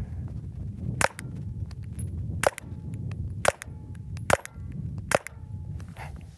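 Five 9mm handgun shots, spaced roughly a second apart, fired at a soft body-armor vest, over a steady low rumble.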